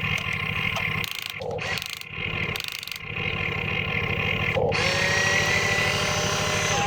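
Small electric motors of radio-controlled construction models running: a steady whirring hum that drops off for a couple of seconds about a second in, then a steady whine from about five seconds in.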